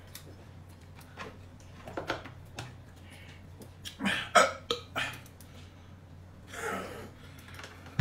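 Short, scattered mouth and throat noises from a person at a meal, in brief bursts about two, four and seven seconds in.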